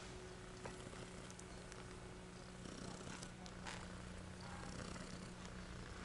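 A nursing mother cat purring steadily and faintly at close range, with a few small clicks.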